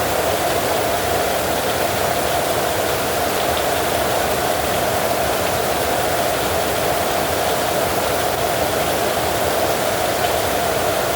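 Heavy rain falling steadily, a dense even hiss with faint scattered patter of drops and no thunder.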